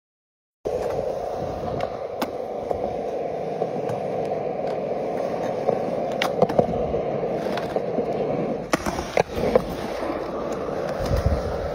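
Skateboard wheels rolling on smooth skatepark concrete, a steady rolling rumble starting under a second in. Sharp clacks of the board striking the ground cut through it several times, with a cluster about nine seconds in.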